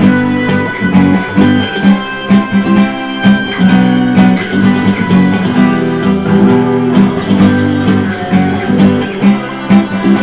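Instrumental break of a rock song played on guitar with a steady beat, no singing.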